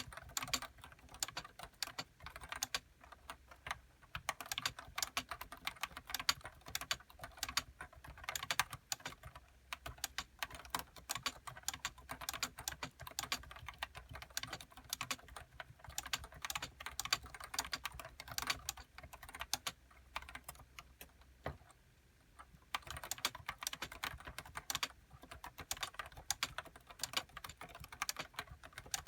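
Continuous typing on a Nissho KB106DE keyboard with Topre switches (30 g uniform weighting) and HiPro keycaps: a quick, steady run of key strokes, with a brief pause about three quarters of the way through.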